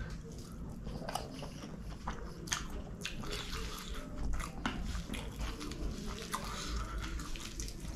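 Close-miked chewing of a mouthful of chicken kottu, with many small wet mouth clicks, and fingers working through the heap of kottu between bites.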